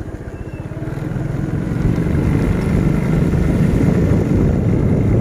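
Small motorcycle engine running as the bike rides along, getting louder as it speeds up about a second or two in, then holding steady.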